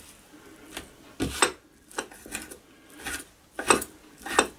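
Chef's knife chopping bacon on a cutting board: several sharp knife strikes at irregular spacing, some in quick pairs, as the blade cuts through to the board.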